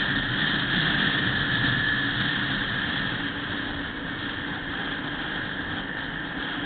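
Motorcycle riding at highway speed, picked up by a camera mounted on the bike: a steady mix of engine noise and wind rush, a little louder in the first couple of seconds.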